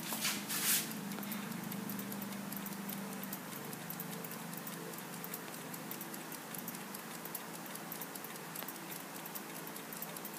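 Brass clock movement ticking in quick, small clicks over a faint steady hum, with a brief rustle about half a second in.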